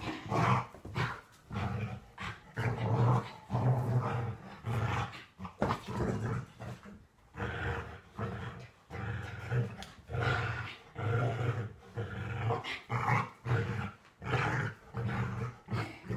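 A dog growling in play, over and over in short rough growls one after another, while it roughhouses and tugs at a person's hands and a towel.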